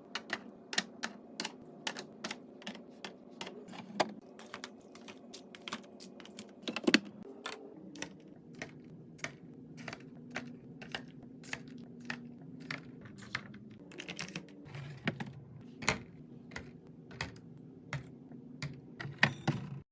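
A run of sharp clicks and taps from containers and items being handled and set down while restocking a fridge, about two or three a second with a louder knock about seven seconds in, over a low steady hum.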